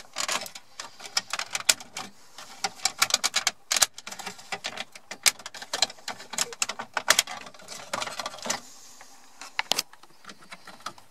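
Irregular clicking and snapping of the plastic dashboard fascia on a VW T5 Transporter as it is pried loose by hand around the heater controls, its clips giving in small clusters of sharp clicks.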